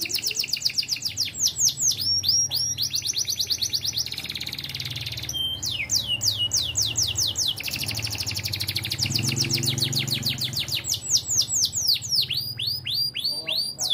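Domestic canary singing in the high, ringing "ting ting" style: long, fast trills of repeated falling notes, broken now and then by a few slower, wider downward sweeps.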